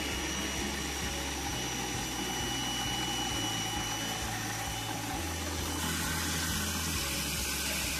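Small electric motor running steadily with a hissing whine; its sound changes about six seconds in.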